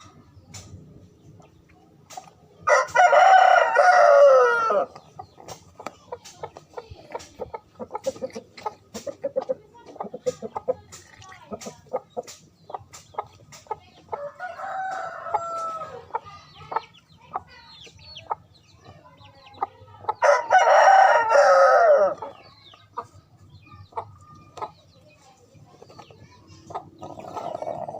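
Rooster crowing twice, each crow about two seconds long and falling in pitch at the end, some seventeen seconds apart. A softer call comes in between, with small ticks and clucks throughout.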